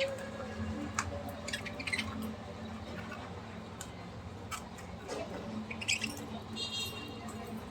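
Small birds giving short, high chirps and squeaks, a few at a time, with scattered sharp clicks.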